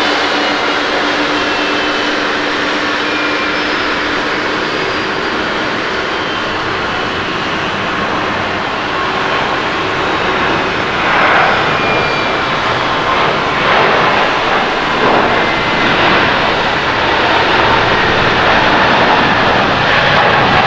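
Boeing 777-300ER's twin GE90-115B turbofans at takeoff thrust during the takeoff roll: a loud, steady jet roar with a high whine slowly falling in pitch. About halfway through it grows louder and more uneven.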